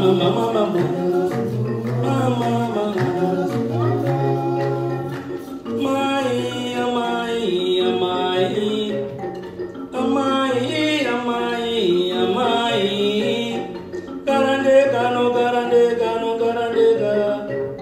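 Shona song: voices singing in phrases over the plucked notes of a mbira played inside a gourd resonator.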